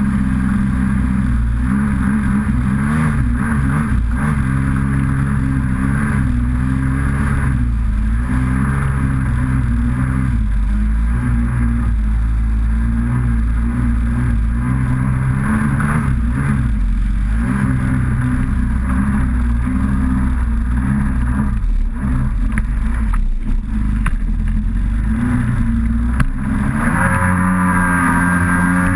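Kawasaki SXR800 stand-up jet ski's two-stroke twin engine running under throttle, heard from on board, its pitch rising and falling as the rider opens and eases the throttle, with a dip and a rev back up near the end. Water spray hisses underneath.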